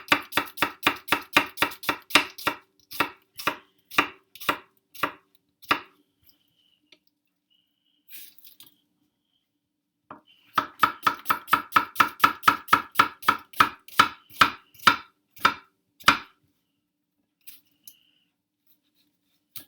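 Knife chopping onion on a cutting board: a fast, even run of about five strokes a second that slows and stops, then after a pause of several seconds a second fast run of chopping.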